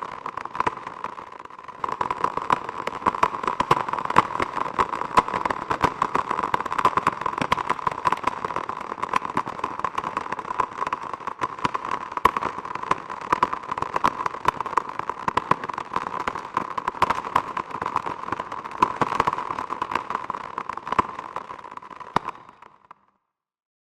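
Geiger counter clicking in a fast, irregular crackle, each click a detected particle of radiation, the dense rate the sign of a high radiation reading. The clicks are thinner for the first couple of seconds, then come thick and steady, and stop about a second before the end.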